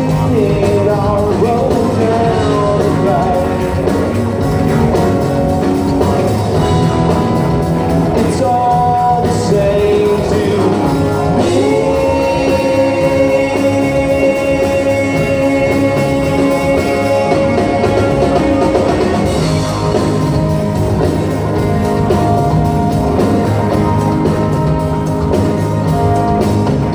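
Live rock band playing a song: a lead vocal over electric guitars, bass, drums and keyboards, with a long held note in the middle.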